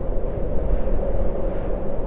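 Steady, loud low rumbling noise with no clear rhythm or pitch.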